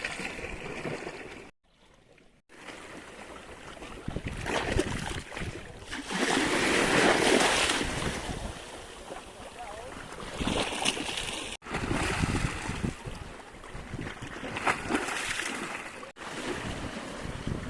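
Ocean waves washing and surging, with wind buffeting the microphone. The sound swells loudest in the middle, cuts out for about a second near the start, and is cut off sharply twice later.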